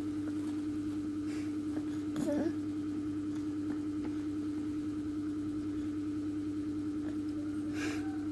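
A mains-powered compressor nebulizer running with a steady, even hum, used as a steam treatment for a toddler's cough.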